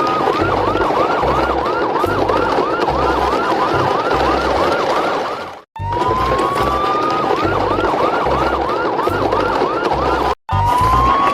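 Police-style siren: a rising wail, then a fast up-and-down yelp, over a low pulsing beat. It cuts out and starts over from the wail about six seconds in, and again near the end.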